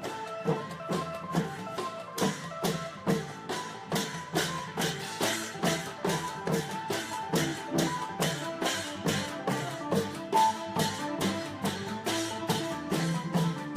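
Isan klong yao long-drum ensemble playing a fast, steady rhythm: sharp drum strokes several times a second over steady ringing tones.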